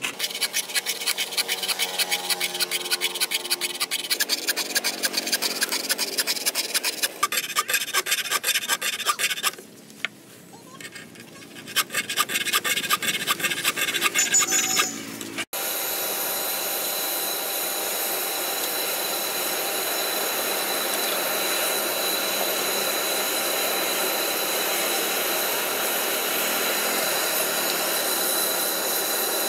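Hand file scraping along the edge of a steel billhook blade in rapid rasping strokes, with a short pause partway through. About halfway through, this gives way to the steady rush of a charcoal forge fire blown with forced air, with a faint high whine over it.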